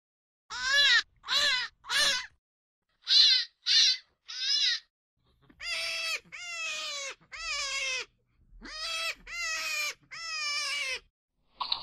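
A series of animal calls, each clear-pitched and separated by silence: three short calls rising and falling in pitch, three shorter higher ones, then about six longer calls that slide down in pitch.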